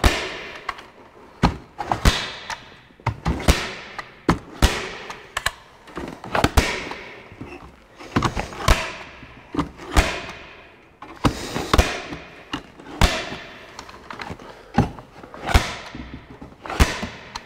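Hand staple gun (Arrow EasyFire) firing staples through metal hardware cloth into a wooden frame. Each shot is a sharp snap with a brief ring, repeated at an uneven pace of about one a second.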